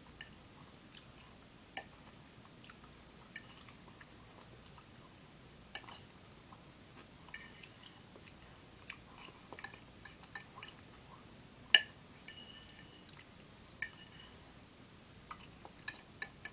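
A person chewing a meal of fish sticks and pasta, with a fork clinking against the plate now and then. One sharp, loud clink comes about two-thirds of the way through, and a quick run of clinks comes near the end.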